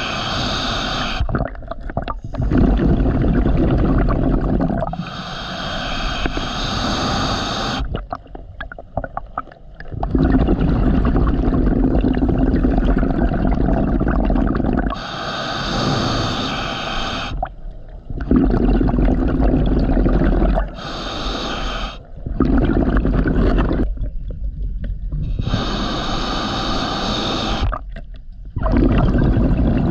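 Scuba diver breathing through a demand regulator underwater: each inhale is a short hiss through the regulator, each exhale a longer burble of bubbles, in about five slow, regular breaths.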